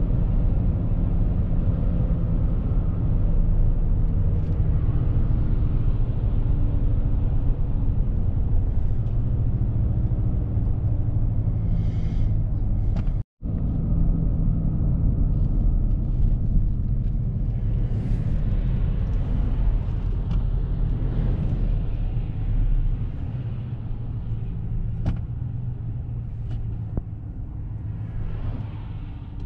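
Dodge Ram 1500's 5.7 HEMI V8 and road noise heard from inside the cab while it cruises on the motorway: a steady low rumble. The sound cuts out for a moment about halfway through, then carries on somewhat quieter toward the end.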